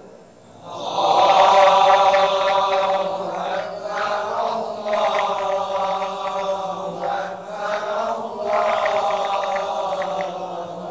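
A man's voice chanting Islamic recitation in long, drawn-out melodic phrases, three phrases with short breaks between them.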